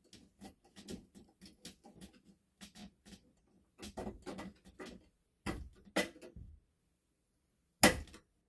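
Screwdriver working the terminal screws on a fire alarm speaker strobe's mounting plate: a quick run of small ticks and scrapes, then a few louder knocks of metal and plastic being handled, the loudest one near the end.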